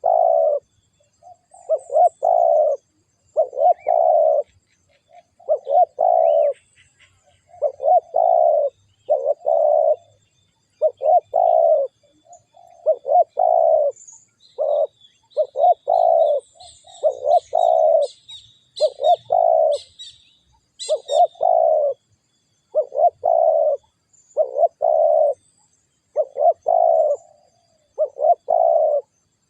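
Spotted dove (tekukur) cooing: a steady run of low, rounded coo notes, about one every second and a half.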